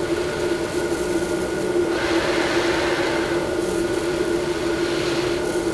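CPAP air hissing through a Fisher & Paykel Brevida nasal pillow mask at 10 cm of water pressure, over a steady low hum. The hiss swells with a breath about two seconds in, and there is a slight whistle. The wearer takes the whistle for a leak, possibly in the tubing or from a hole somewhere in the mask.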